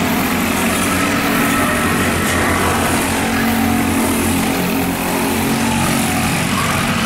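Racing go-kart engines running at speed, a steady drone whose pitch shifts slightly, over a continuous rush of noise.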